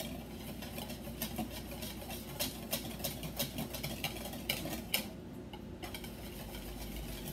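Wire whisk clicking quickly and irregularly against the sides of a mixing bowl as chocolate pudding mix is whisked into cold milk to dissolve the powder and work out the clumps, with a brief pause about five seconds in.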